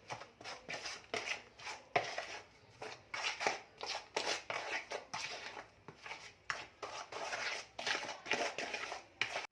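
Hand-mixing a margarine, sugar and egg batter in a bowl: repeated scraping, slapping strokes of the mixing spoon, about two or three a second, uneven in strength.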